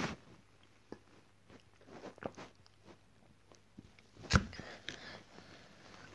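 Mouth sounds of someone drinking from a plastic soda bottle: quiet sips and small scattered clicks, with one sharp knock about four seconds in.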